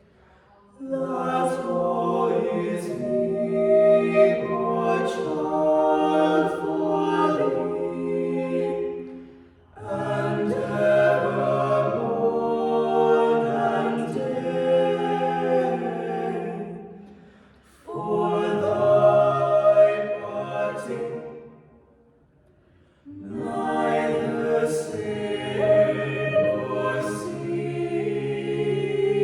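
An a cappella choir singing in long phrases of several seconds each, with brief breaths of near silence between them.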